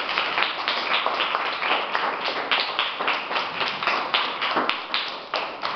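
A group of children clapping their hands in applause, a quick, uneven patter of many claps that begins to tail off near the end.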